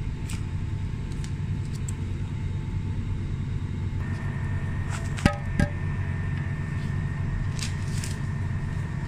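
Steady low machine hum throughout, with a faint high whine joining about four seconds in. About five seconds in come two sharp, ringing clinks a third of a second apart.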